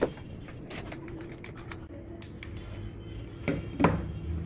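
Scattered clicks and taps of small plastic items handled on a wooden desk, with two sharper clicks about three and a half seconds in as a USB cable is plugged into a power bank to light an LED star lamp.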